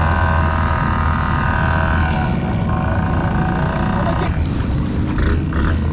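ATV engine running steadily under load in four-wheel drive through deep mud and water; from about four seconds in it is joined by rougher, noisier sound.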